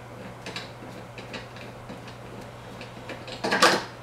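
Plastic handle knobs being unscrewed from a lawn mower's handle bolts, with small scattered clicks, then a louder short clatter about three and a half seconds in.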